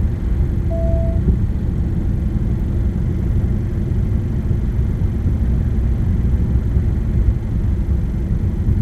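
Steady road and engine rumble heard from inside the cabin of a car cruising along a highway. A brief, steady tone sounds once about a second in.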